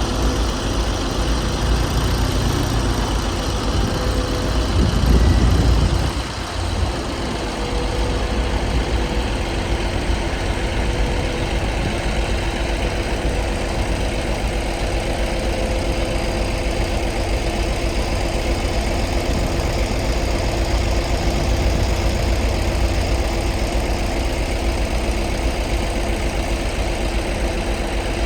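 Engine of an 11-ton Bomag padfoot compactor running steadily with a heavy low rumble. It swells louder about five seconds in, then drops back suddenly and carries on steady.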